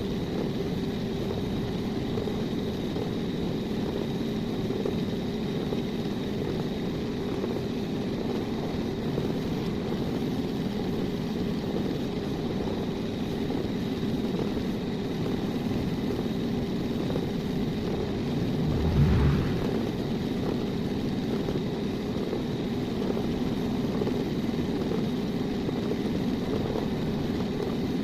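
A power tool's electric motor running steadily with a faint high whine over a low drone, and one brief louder low knock about two-thirds of the way through.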